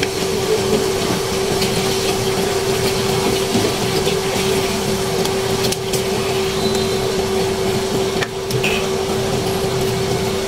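Pork ribs simmering in a dark sauce in a nonstick wok, giving a steady hiss of bubbling over a steady hum. A plastic spoon stirs and scrapes through the ribs, with a few light knocks.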